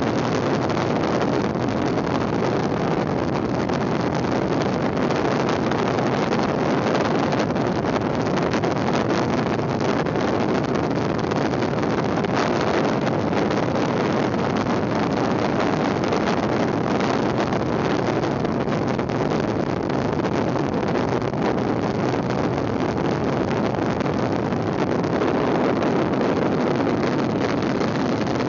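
Steady rushing noise of wind on the microphone mixed with the rumble of a folding kick scooter's wheels rolling fast down an asphalt road.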